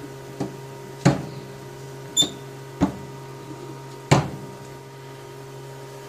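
Amphenol RJ21 wire insertion tool being opened up by hand, its metal parts giving about five separate clicks and clunks, one with a brief metallic ring and the loudest about four seconds in.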